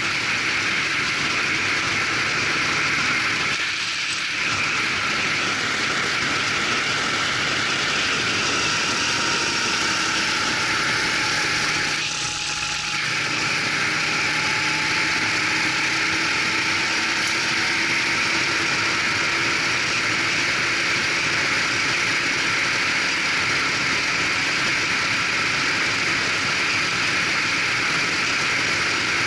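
Racing kart engine heard from onboard, running continuously at speed with a dense hiss of wind and road noise. There are brief dips about four and twelve seconds in, then the engine note slowly rises as the kart picks up speed.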